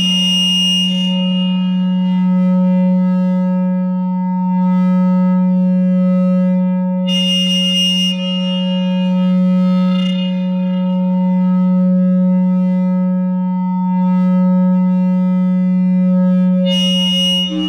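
No-input mixer feedback drone: a two-channel mixer looped back on itself through an effect pedal, holding a low steady tone with a few steady higher tones above it. Bright, shrill flares of feedback come in briefly near the start, about seven seconds in and near the end, and the level swells and dips slowly.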